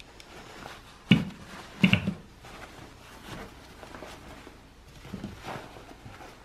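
Handling noise as a plastic clip-in fan unit is fitted into a fabric fan jacket: cloth and mesh rustling, with two sharp bumps about a second and two seconds in, then softer rustles.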